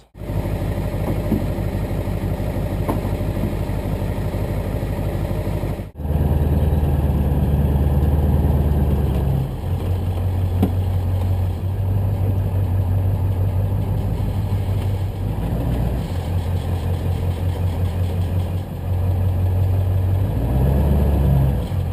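Pickup truck engine running at low speed, heard from the truck's bed as it drives, its low hum rising and falling in steps. The sound cuts out briefly about six seconds in and comes back louder.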